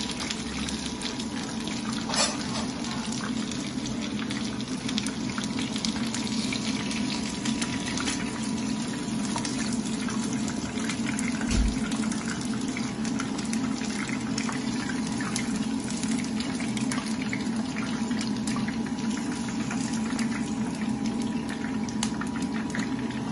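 Chicken pieces deep-frying in a pan of hot oil: a steady sizzle dense with small crackles. A sharp knock comes about two seconds in and a brief low thump near the middle.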